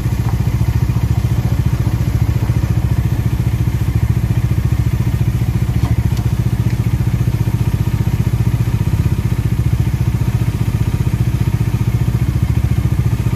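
Bajaj Dominar's single-cylinder engine running steadily in gear on a paddock stand, with a fast, even low pulse, driving the chain and the spinning rear wheel.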